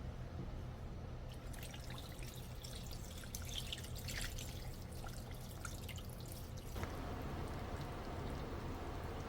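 Liquid dripping and trickling with scattered plinks in a kitchen while dongpo pork is being cooked, turning at about seven seconds in to a steadier bubbling of liquid in the pot. A low steady hum runs underneath.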